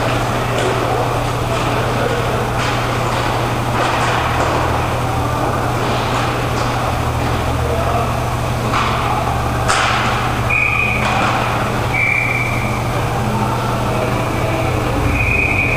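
Indoor roller hockey game noise: a steady low hum under scattered clacks of sticks and puck on the rink floor, with a few short high tones in the second half.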